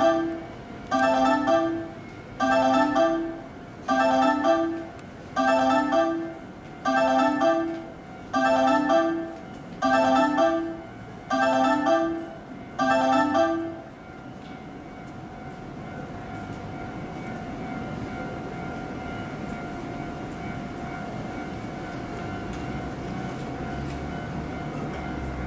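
A railway electronic warning chime, two notes, low then higher, repeating about every one and a half seconds, ten times, then stopping about fourteen seconds in. A low rumble then slowly builds as a train approaches.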